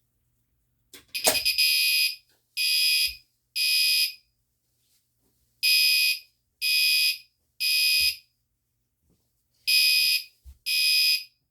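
Electronic fire alarm horn sounding in a three-blast evacuation pattern: three short, high-pitched blasts, a pause, then three more, repeating about every four seconds. A sharp click about a second in, as the manual pull station is pulled, sets it off.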